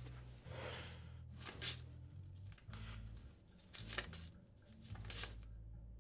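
Small paper cue cards being flipped through by hand: a longer rustle near the start, then several short papery flicks as each card is moved to the back of the stack.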